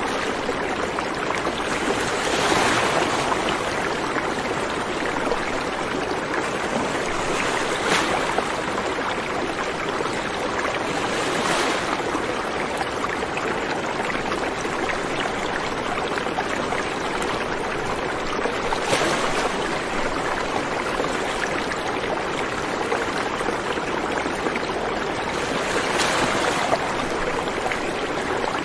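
Steady rushing water, swelling briefly now and then, as of surging flood water or waves.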